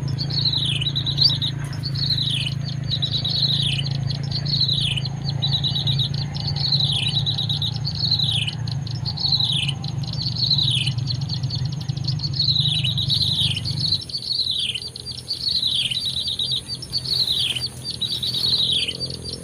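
Small bird calling over and over at an even pace, each note a quick downward-sweeping chirp. A low steady hum drops away about two-thirds of the way through.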